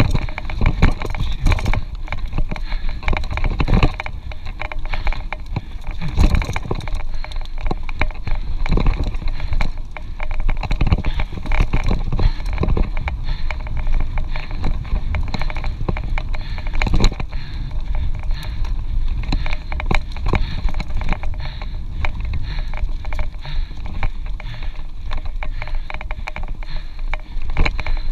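Mountain bike ridden over a rough forest dirt trail: a continuous rumble and rattle from the tyres and bike, with frequent knocks as it goes over bumps.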